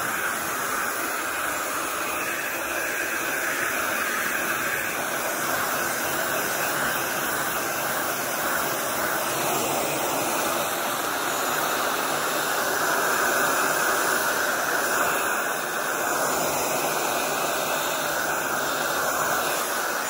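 Electric heat gun blowing steadily on freshly sprayed paint to dry it.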